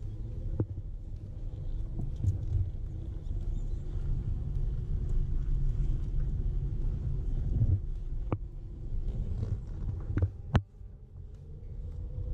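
Car driving slowly, heard from inside the cabin: a low rumble of engine and tyres on the road with a faint steady hum, broken by a few sharp knocks, the loudest near the end.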